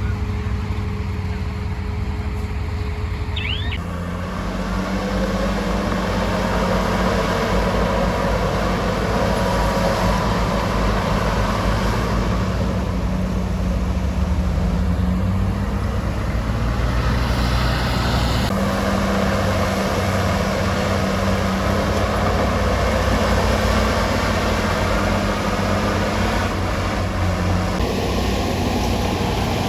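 Bulldozer's diesel engine running steadily as it works. Its engine note shifts a few times, about four seconds in, again past the middle and near the end.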